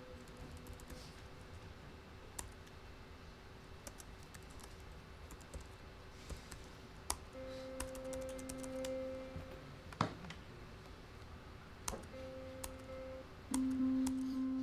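Laptop keyboard typing and key clicks, then SuperCollider's default synth playing middle C three times through the room's speakers: a steady note of about two seconds, a short one, and a third that starts near the end.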